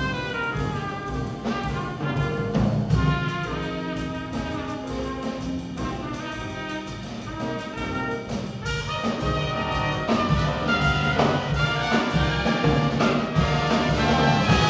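Jazz big band playing live: brass section over piano, bass and drum kit, with the full ensemble growing louder in the last few seconds. Heard from the seats, with the hall's reverberation.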